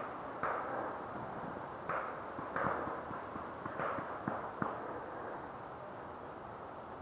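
Paintball markers firing in an exchange of shots: irregular sharp pops, several in the first few seconds, fading to faint ticks after about five seconds.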